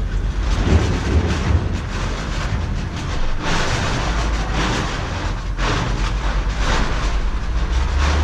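A vehicle running with a steady low rumble, overlaid by irregular rattling, rushing noise.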